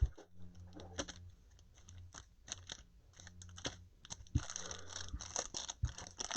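Cardboard card boxes and foil-wrapped packs being handled: irregular crinkles, taps and scrapes, over a low steady hum.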